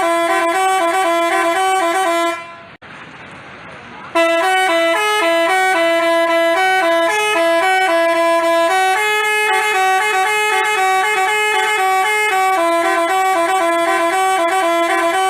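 Multi-tone Basuri 'telolet' bus horn playing a quick melody of short stepped notes. It breaks off a little after two seconds, leaving a quieter background hiss, then starts again about four seconds in and plays on without a break.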